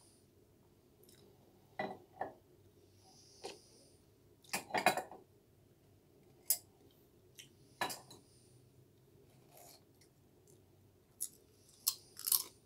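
Small stainless-steel serving buckets of potato crisps handled and set down, with scattered clinks, taps and paper-liner rustles; the loudest cluster comes about five seconds in. Near the end, a crisp crunches between the teeth.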